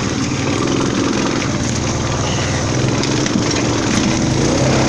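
The small engine of an open off-road utility vehicle, running steadily under light throttle as it crawls over rough, rocky woodland ground.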